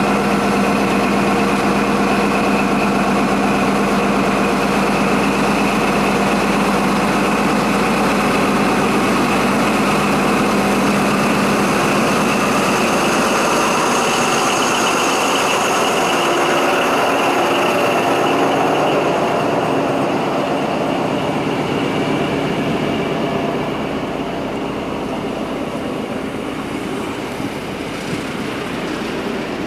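XPT diesel power car running beside the platform with a steady engine hum and a high whine. It moves off, and the hum gives way to the rolling noise of the passenger carriages passing, which fades toward the end.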